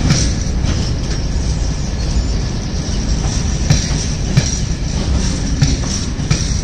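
Open box wagons of an engineering train rolling past on the rails: a steady rumble with sharp knocks of wheels over rail joints at irregular intervals, and a faint, steady high-pitched squeal.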